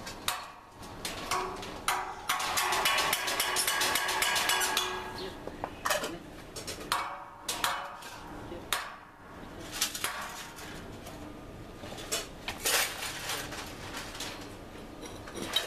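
Scattered metallic clinks and knocks from work on steel rebar, with a run of rapid crackling from about two to five seconds in.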